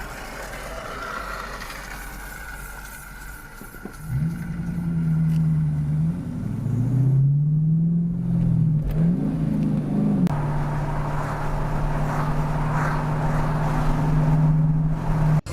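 Motor vehicle engine running, rising and falling in pitch a few times as it revs and accelerates, then holding a steady pitch.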